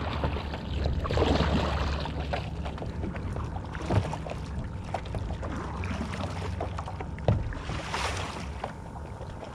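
Water splashing and sloshing beside a paddleboard as a tarpon is held in the water for revival, under a steady low rumble of wind on the microphone. A couple of light knocks come about four and seven seconds in.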